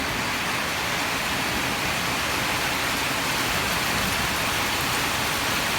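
Rainstorm downpour falling steadily: an even, dense hiss of heavy rain.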